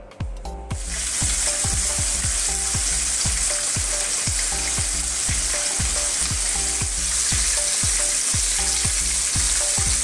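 Flour-coated mackerel sizzling in hot cooking oil in a frying pan. The sizzle comes in suddenly just under a second in and then holds steady. A steady musical beat runs underneath.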